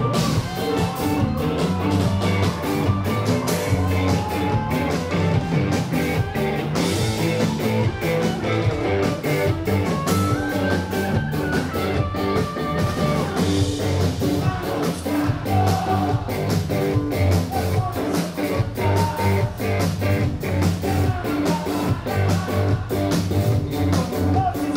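Live rock band playing loudly on stage, with electric guitars, keytar and a steady drum beat.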